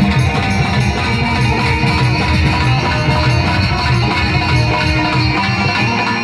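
Loud instrumental music with a steady beat and a bright, plucked-string-like lead, played through a stage sound system.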